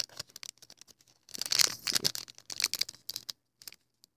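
Hands rummaging through cosmetics in a cardboard box: irregular crinkling of plastic and foil wrapping, with scattered light clicks and taps as small items are handled.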